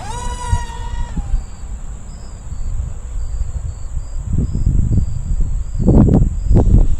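Small electric RC plane motor whines up and holds for about a second, then cuts off suddenly. Wind then buffets the microphone in gusts, strongest near the end, with crickets chirping steadily.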